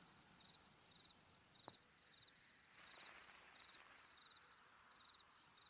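Faint cricket chirping: a short, pulsed trill repeating a little under twice a second over near silence. A single faint click comes about a second and a half in.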